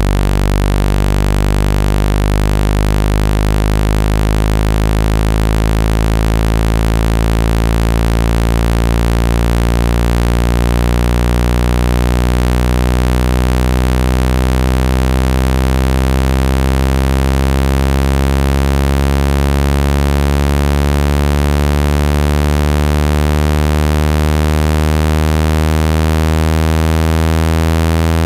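Loud, steady, low buzzing electronic tone with many overtones, a speaker-cleaning tone played at full volume to shake water and dust out of a phone speaker.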